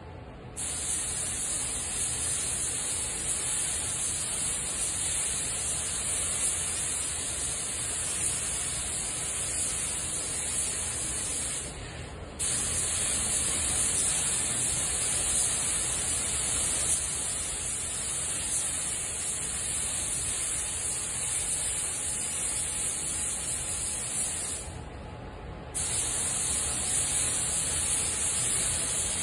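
Gravity-feed paint spray gun hissing steadily as it sprays metallic paint at a lowered air pressure of about half a bar. The hiss cuts off twice for about a second where the trigger is released between passes.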